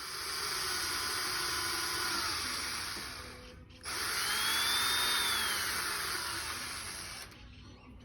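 Electric drill running in two long bursts, each lasting a few seconds with a short pause between, its motor whine sliding in pitch as the speed changes.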